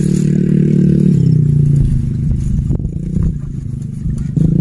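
Homemade contact-breaker fish shocker (setrum platina, PS semi type) buzzing steadily. Its pitch drops about a second in and rises again near the end, with a few faint clicks in between.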